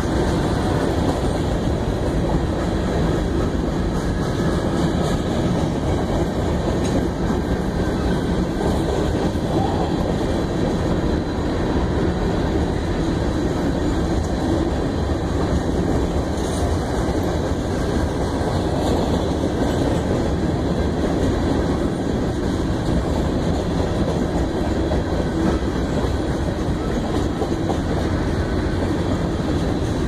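Freight cars of a passing BNSF train (covered hoppers, boxcars and tank cars) rolling by at steady speed: a continuous rumble of steel wheels on rail, with a few faint clicks.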